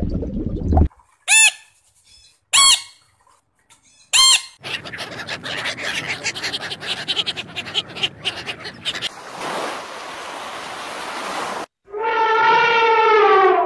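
A string of different animal calls cut together. First come three short, high squeaks, each rising and falling in pitch. Then a few seconds of fast chattering, a stretch of hiss, and near the end one longer, pitched call that slowly falls.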